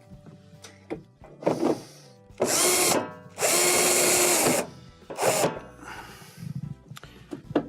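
Cordless power driver driving Phillips screws: short blips of the motor, then two longer runs of about a second each in the middle.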